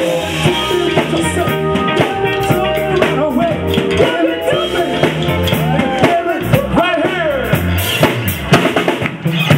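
Live soul-funk band playing loudly: drum kit, electric guitar and bass guitar, with a voice singing over it.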